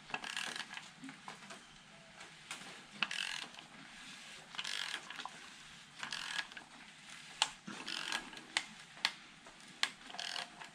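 Audi 2.0 TFSI (EA888) engine turned over by hand at the crankshaft with a socket and ratchet, the timing chain and sprockets going round. There are bursts of ratcheting and several sharp clicks in the second half. The little clicky noise is just the chain tensioner's ratcheting mechanism, which is harmless.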